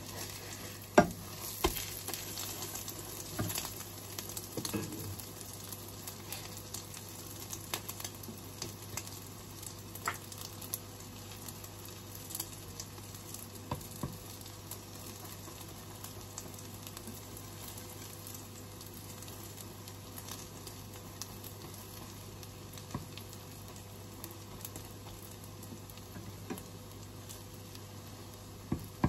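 Tortang okra, okra in beaten egg, sizzling as it fries in oil in a pan: a steady hiss with scattered sharp crackles, more of them in the first few seconds.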